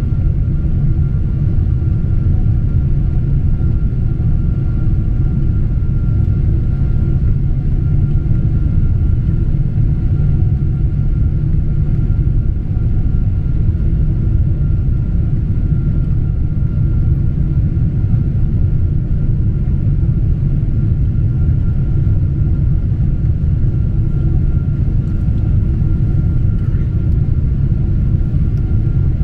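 Cabin noise of a Boeing 777-200 airliner descending on approach, heard from a window seat over the wing. Engine and airflow make a deep, even rush, with a faint steady high tone above it.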